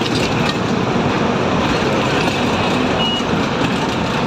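City bus running, heard from inside the cabin: a steady engine and road rumble. A short high beep sounds about three seconds in.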